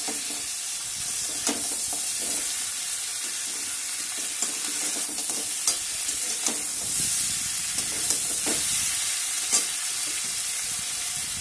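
Pieces of aar fish sizzling in oil and spice masala in a metal wok over a high gas flame, stirred with a flat metal spatula. A steady sizzle, with a sharp click every second or two where the spatula scrapes and knocks against the pan.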